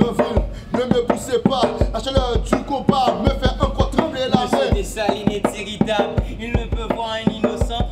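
A rope-tuned hand drum struck by hand in a steady rhythm, with a man's voice declaiming lines in Haitian Creole in time with the beat, close to rapping.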